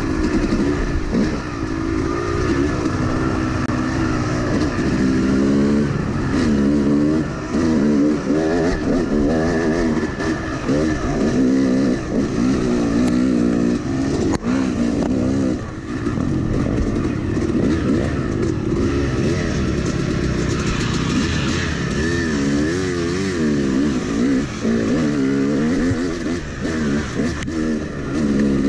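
Yamaha YZ250X two-stroke dirt bike engine being ridden, its pitch rising and falling again and again as the throttle is opened and closed.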